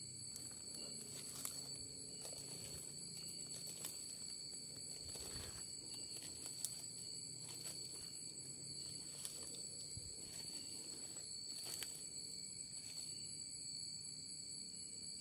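Night insects shrilling steadily in several high, level tones, with scattered soft footsteps and rustles on the forest floor; the sharpest step is about six and a half seconds in.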